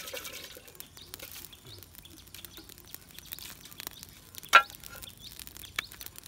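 Small campfire of twigs and dry leaves crackling with scattered light ticks, then a sharp loud crack about four and a half seconds in and a smaller one near the end.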